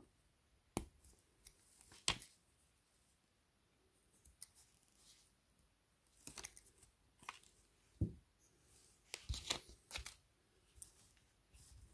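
Small hard-plastic toy pieces being handled: a Playmobil figure and its accessories clicking and tapping against fingers and each other, about a dozen scattered sharp clicks with quiet gaps between them.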